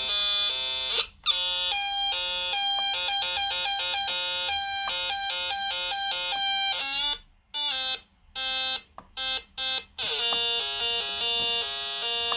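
Breadboard synthesizer circuit bleeping, a buzzy electronic tone switching back and forth between two pitches. It cuts out in a few short stutters between about 7 and 10 seconds in, then comes back alternating faster.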